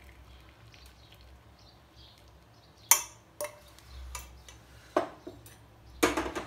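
A faint trickle of tea poured through a mesh tea strainer, then sharp metallic clinks and knocks from about three seconds in, four in all, as the steel saucepan and strainer are put down.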